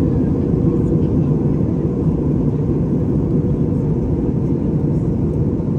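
Steady low rumble inside a jet airliner's cabin in flight: engine and airflow noise, even and unbroken.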